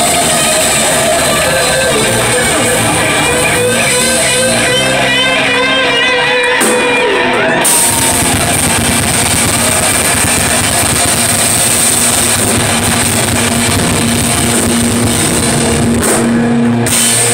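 Live rock band playing loud: electric guitar with wavering bent notes over bass guitar and drum kit. From about eight seconds in, a long steady low note is held.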